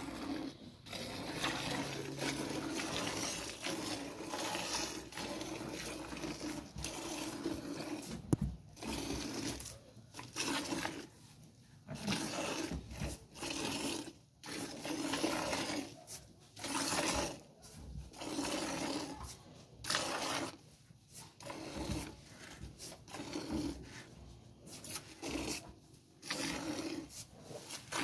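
Hand milking a cow into a partly filled plastic bucket: milk squirting from the teats into the milk with a hissing, splashing sound. The squirting is near-continuous at first, then comes in runs of about a second with short pauses.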